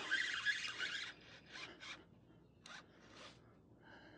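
Fishing reel's drag buzzing as a big red drum pulls line off: one long buzz for about the first second, then several short, fainter bursts as the fish surges.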